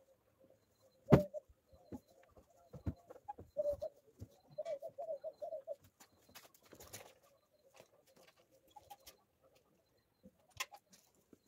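Pigeons cooing in a pulsing, warbling run through the middle. A sharp knock about a second in, the loudest sound, and a few lighter clunks come as a light motorcycle is wheeled off a trailer.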